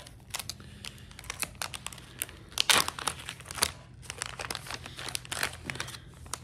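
Plastic packaging of a soft-plastic fishing lure crinkling and crackling as it is handled, in a rapid run of sharp crackles that is loudest around the middle.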